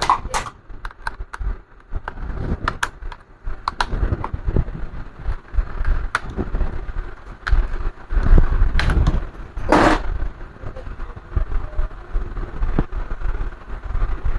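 Scattered clicks and knocks of hands handling an opened laptop and its parts on a workbench, over a steady low rumble, with one louder short rustling burst near the ten-second mark.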